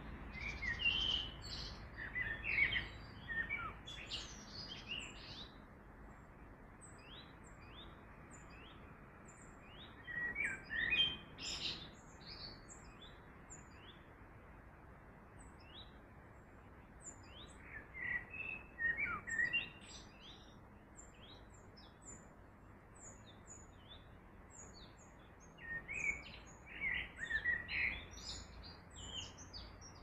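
Birds singing: four bursts of quick chirping song phrases, roughly every eight seconds, with scattered short high chirps between them, over a steady even hiss of running water.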